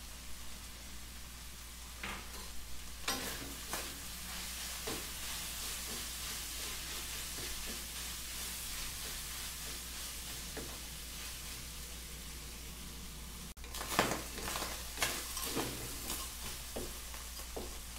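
Ground pork and melted cheese sizzling in a wok while a wooden spatula stirs, scrapes and knocks against the pan. The strokes come thick and fast in the last few seconds.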